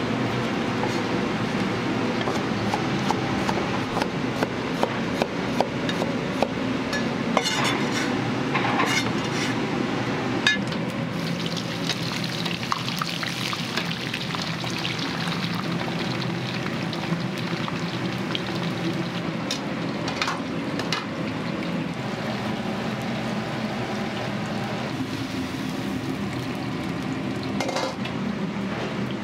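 Food frying and sizzling in a pan, with metal utensils clinking against it a few times, over a steady low hum.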